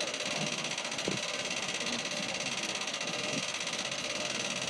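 Hand-cranked gear winch of a small bascule bridge being turned by hand: a steady mechanical noise from the gearing.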